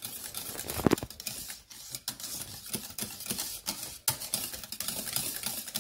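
Wire whisk clicking and scraping against the saucepan as beaten egg is mixed gently into thick béchamel sauce: a fast, irregular run of small ticks, with one louder knock about a second in.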